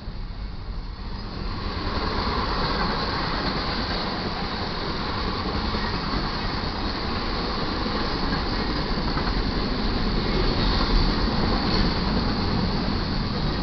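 BNSF intermodal freight train (Z train) rolling past at track speed: a steady rumble and rattle of wheels on rail, growing louder about two seconds in and then holding.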